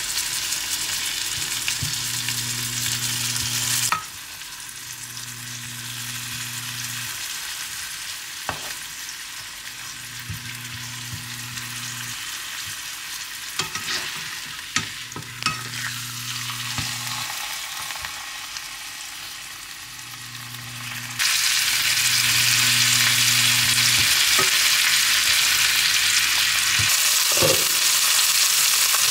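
Chicken breasts with diced onion and peppers sizzling as they fry in a nonstick pan, with a few clicks of tongs against the pan. The sizzle drops quieter suddenly about four seconds in and comes back louder about twenty-one seconds in. Under it a low hum switches on and off every few seconds.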